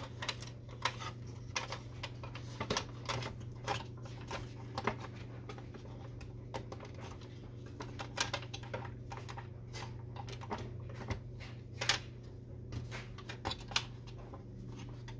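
Irregular plastic clicks and taps as a spring and a small plastic lever are worked loose inside the stripped plastic chassis of an Epson XP-340 inkjet printer, over a steady low hum.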